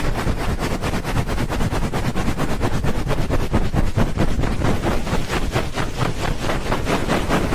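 Rapid, rhythmic rubbing over a microphone's ear, the ASMR 'helicopter' ear-rub trigger: a fast, even whooshing pulse that goes on without pause.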